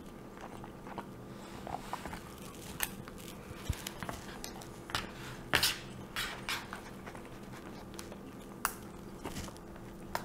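A fork tapping and scraping in a bowl of rice, with chewing, as a series of light clicks spaced irregularly about a second apart over a faint steady hum.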